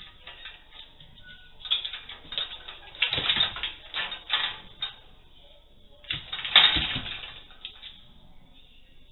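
Metal pet gate rattling and clattering in two bouts of quick knocks as a big golden retriever puppy squeezes through its small cat door, heard through a security camera's microphone.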